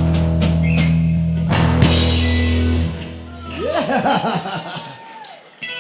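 Live rock band playing through amplifiers, electric guitar and bass holding a loud chord that cuts off about three seconds in, followed by quieter, scattered guitar sounds with bending pitches.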